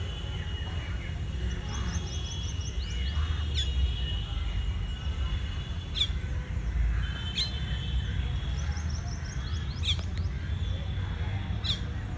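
Small songbirds chirping: sharp, quickly falling chirps every second or two, with two short quick runs of high repeated notes, over a steady low rumble.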